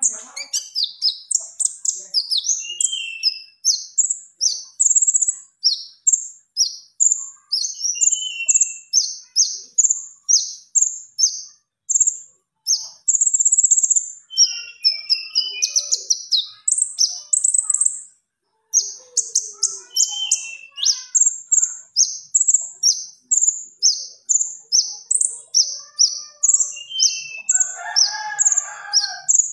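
A konin songbird singing gacor in the dacok style: a long, rapid run of short, sharp high chirps, about three a second, with two brief pauses. A lower warbling phrase joins in near the end.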